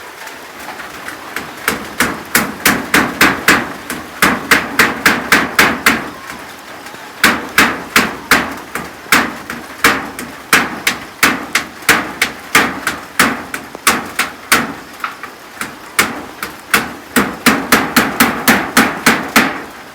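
Hammer driving nails in quick runs of sharp, ringing strikes, about three a second, in three spells with short pauses between, as roof sheets are nailed onto a hut. Steady rain hiss underneath.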